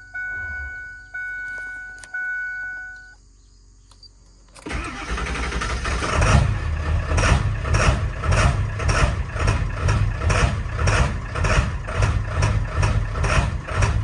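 A dashboard chime dings three times, then after a short pause the 7.3L Powerstroke V8 turbo diesel cranks and fires about four and a half seconds in on a cold start. It runs rough and uneven with a pulsing, bucking cackle, which the owner puts down to bad injector O-rings.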